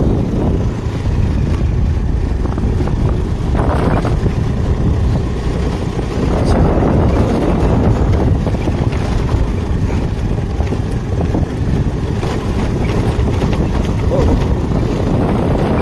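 Motor two-wheeler being ridden over a rough dirt road: the engine runs under a steady, heavy rush of wind buffeting the microphone.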